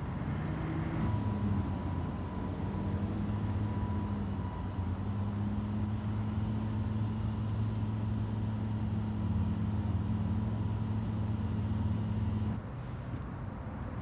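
A motor vehicle engine running steadily with a low, even hum. It drops away abruptly near the end.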